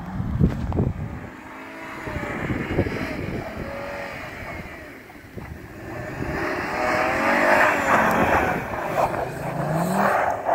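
Car engine revving up and down as the car drifts on packed snow with its wheels spinning, and a clear rise in revs near the end.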